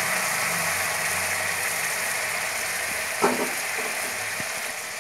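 Hot oil-and-masala sizzling and bubbling in a pan just after boiled water has been poured in: a steady hiss that eases a little toward the end.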